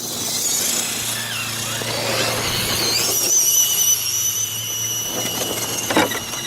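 Electric motor and gear whine of a 1/10 scale RC crawler truck, recorded onboard. The high whine climbs in pitch about two to three seconds in, then holds steady, with a sharp knock about six seconds in.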